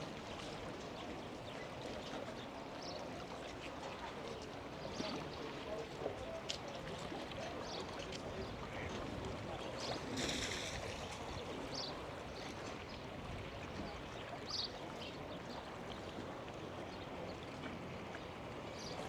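Outdoor lakeside ambience: water lapping and moving steadily, with scattered small knocks and faint voices, and a brief louder rush of noise about ten seconds in.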